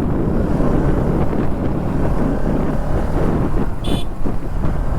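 Motorcycle engine running under way, with wind buffeting the microphone. A brief high-pitched tone sounds about four seconds in.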